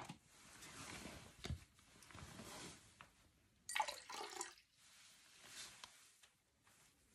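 Water poured briefly from a plastic jug into a glass jar, a short splashing pour about four seconds in. A couple of light knocks come before it.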